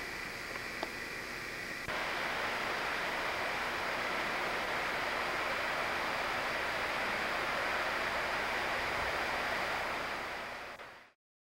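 Steady, even hiss of background noise, stepping up louder about two seconds in and fading out near the end, with a faint click before the step.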